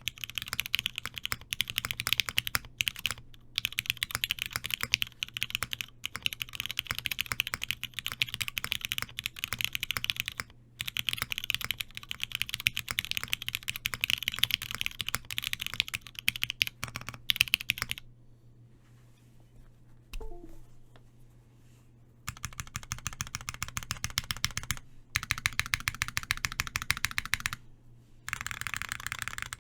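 Custom mechanical keyboard with lubed, broken-in Cherry MX Black linear switches in an aluminium plate, typed on in fast continuous runs. Typing stops for about four seconds past the middle, then resumes.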